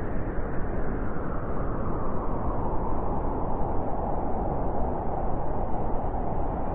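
Blizzard wind blowing hard and steadily, a dense rush of noise whose howling mid-range tone swells from about halfway through.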